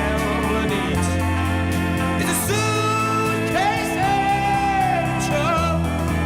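Background music: a song with a sung melody over sustained bass and accompaniment.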